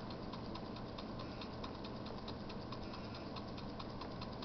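Small homemade Stirling engine with a CD flywheel, running fast on heat stored in a stove-warmed aluminum block. Its crank and linkage make a rapid, even ticking, many ticks a second.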